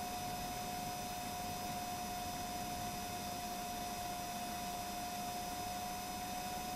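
Helicopter in cruising flight, heard through the cockpit intercom as an even hiss with a steady constant tone and fainter higher tones.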